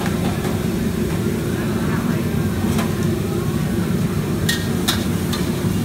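Gas-fired wok burners running with a steady low rush, with several sharp metal clanks of a cooking utensil against a wok, once about three seconds in and a few more near the end.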